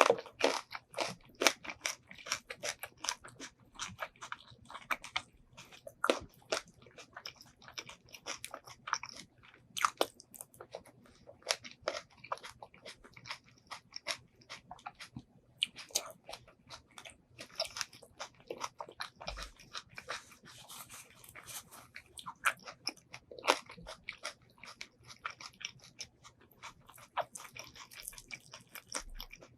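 Close-miked eating of braised pork ribs and white rice: steady biting and chewing with many irregular wet mouth clicks and smacks.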